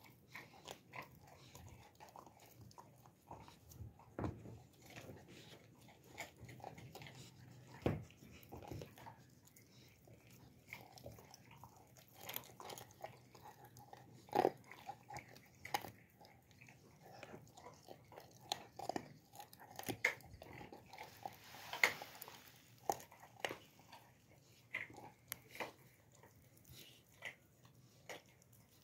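An alabai (Central Asian Shepherd) puppy gnawing and chewing a piece of raw meat, with irregular crunches and clicks of its teeth. The loudest bites come about halfway and about three quarters of the way in.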